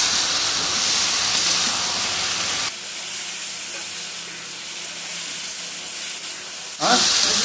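Lemon pieces in masala sizzling in a hot iron wok while being stirred with a perforated metal spatula: a steady frying hiss. It drops quieter and thinner about three seconds in and comes back just before the end.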